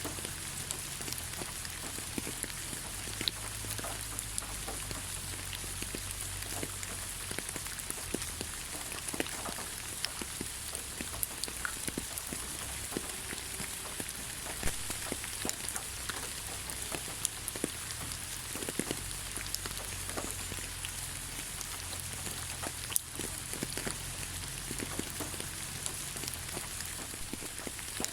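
Rain falling steadily on the ground: a continuous hiss with many scattered individual drop ticks and a low rumble underneath.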